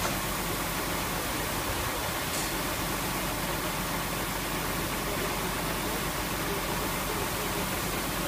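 Lorry-mounted crane's diesel engine running steadily, with an even hiss.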